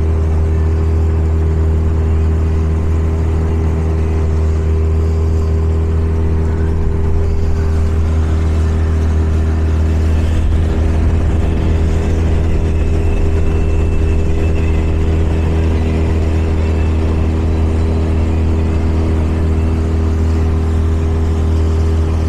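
Parsun 20 hp four-stroke outboard motor running steadily at full throttle, driving an inflatable boat upstream against the current, with water rushing past the hull.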